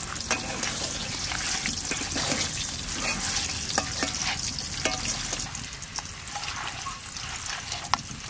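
Hands kneading and squishing raw duck meat with sliced onions, spices and oil in a steel bowl: a steady wet squelching with a few light clicks.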